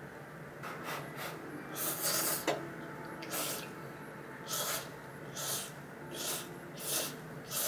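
A person slurping instant ramen noodles from a cup with chopsticks: a string of about ten short sucking slurps, with a longer draw about two seconds in.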